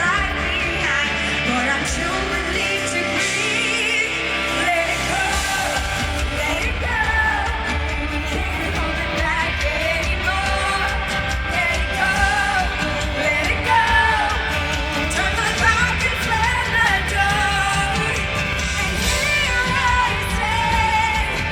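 A pop song sung over instrumental backing music, the voice holding long, wavering notes.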